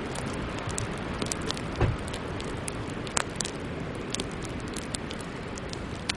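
Sleet pattering on a car's glass and body: a steady hiss of wind and precipitation with many small, irregular ticks. A dull thump about two seconds in.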